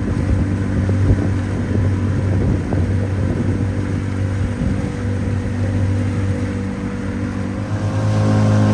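Outboard motor of a CraigCat catamaran running steadily under way, with water slapping against the hulls and wind buffeting over the engine drone. The engine grows a little louder near the end.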